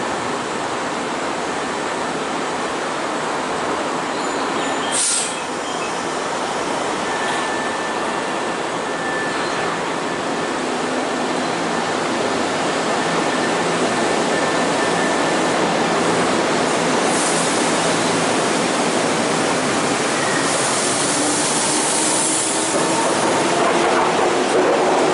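Eight-car Senboku Rapid Railway electric train (6300 series coupled with 6200 series) pulling out of the station: a steady running noise, with a short knock about five seconds in. Near the end the noise grows louder and a motor whine rises in pitch as the train gathers speed.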